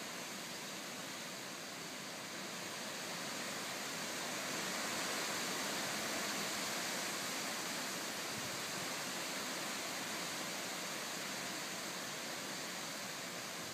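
Strong typhoon wind blowing through trees, a steady hiss that swells a little about four seconds in and then eases slowly.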